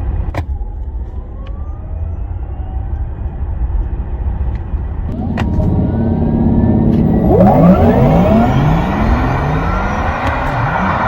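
VinFast VF8 electric SUV's synthetic driving sound effect: layered spaceship-like tones that sweep upward in pitch again and again as the car accelerates, growing louder from about halfway in, over a steady low road rumble. Two sharp clicks are heard, one near the start and one about halfway in.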